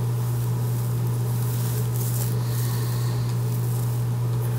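Whirlpool gas oven running with its bake burner newly lit by a glowing igniter: a steady low hum.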